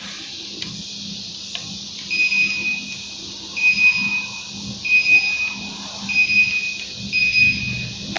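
An electronic beeper sounding a run of about five short, high beeps a little over a second apart, starting about two seconds in. Under the beeps runs a steady airy hiss.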